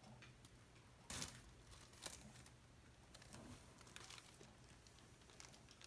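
Near silence with a few faint, brief scrapes and ticks, the strongest about a second in and another about two seconds in: a playing card drawn through wet acrylic paint on a canvas.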